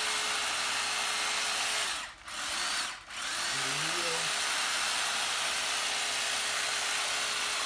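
Corded electric hedge trimmer running steadily with a hum while its blades trim the side of a hedge. Its motor twice briefly spins down and back up, about two and three seconds in.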